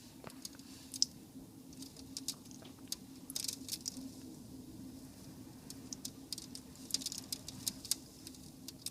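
Faint, irregular small clicks and ticks, thickest a few seconds in and again near the end, over a steady low hum.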